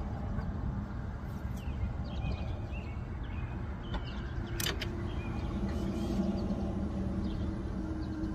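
Steady low outdoor rumble with faint bird chirps and a single sharp click about four and a half seconds in.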